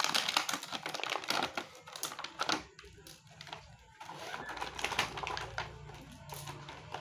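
Rapid clicking and crackling of hard plastic: toy train parts and plastic rail sections being pulled out of a clear plastic packaging tray. The clicks are densest in the first two and a half seconds and thin out after that, with a faint low hum coming in about four seconds in.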